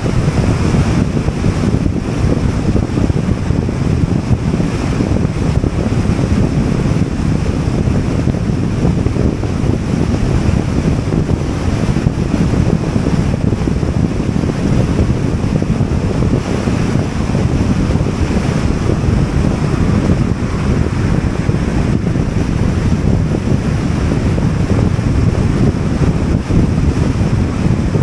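Steady wind and road noise of a car travelling at highway speed, deep and unbroken.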